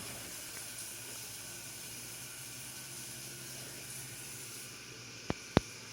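Steady low hiss of background noise with a faint hum, broken near the end by two sharp clicks about a quarter of a second apart.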